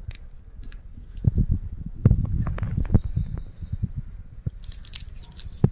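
Irregular low thumps and light crackling from fresh amaranth leaves being handled and picked off their stems by hand. A faint high hiss comes in for about a second midway.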